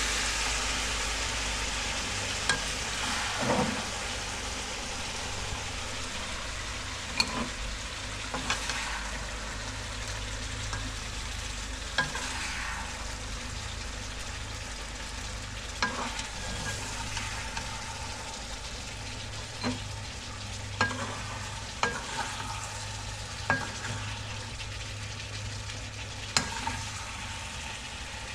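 Cooked chicken fry sizzling in a karai while a utensil scrapes and clinks against the pan every few seconds, as the fried meat is scooped out. The sizzle is loudest at the start and slowly dies down.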